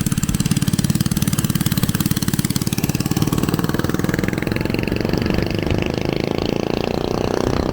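80cc mini-bike engine running with a fast, even firing beat, then picking up speed and rising in pitch about halfway through.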